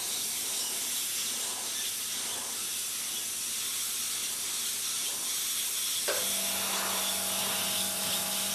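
Airbrush spraying candy paint: a steady hiss of air and paint from the nozzle. About six seconds in, a low steady hum joins the hiss.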